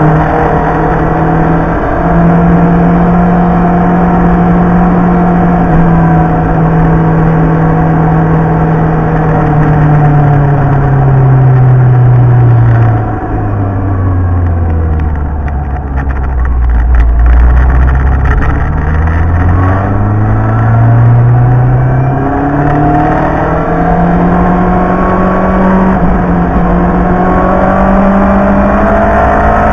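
Sportbike engine heard from the bike itself while riding, over wind noise. It runs at a steady pitch, drops low as the bike slows about halfway through, then climbs steadily as it accelerates again.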